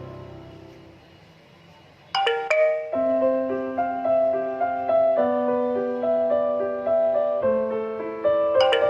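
Slow background music on a piano-like keyboard. It fades almost away in the first two seconds, then a quick run of bright notes leads into held notes over a steady bass.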